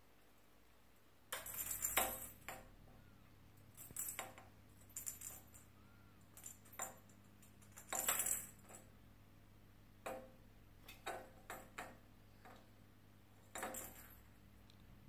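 A small translucent plastic toy ball rattling and clattering over a tiled floor as a kitten bats it. It comes in short bursts, about eight of them, the longest and loudest near the start and around the middle, with quiet between.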